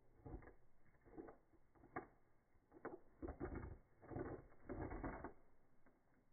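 Faint, slowed-down outdoor sound: irregular low knocks and rustles, coming thick and fast from about three to five seconds in.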